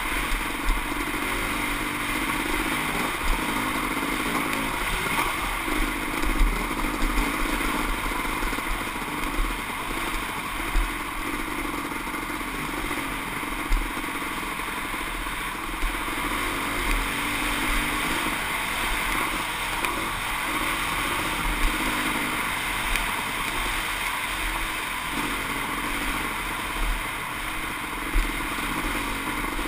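Kawasaki KX500 two-stroke single-cylinder dirt bike engine running steadily under way on a gravel trail, with occasional short low thumps.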